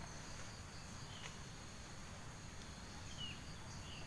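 Steady high-pitched drone of forest insects, with a couple of faint short chirps about one and three seconds in.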